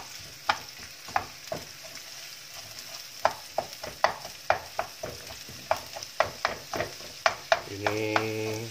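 Wooden spatula stirring sliced shallots, garlic and shrimp paste in a wok, knocking and scraping against the pan about twice a second over a steady sizzle of frying oil.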